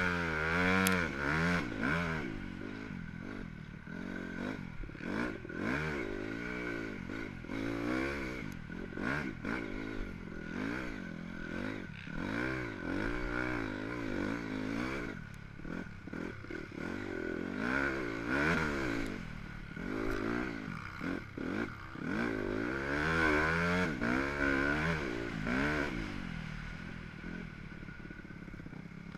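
Dirt bike engine revving up and easing off over and over, its pitch rising and falling with each burst of throttle and gear change, heard close from the rider's helmet.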